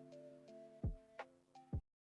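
Background music: sustained chords with sharp plucked or struck notes about every half second, cut off abruptly near the end.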